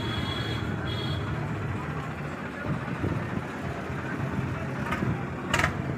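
Tractor diesel engine idling steadily, with a sharp click about five and a half seconds in.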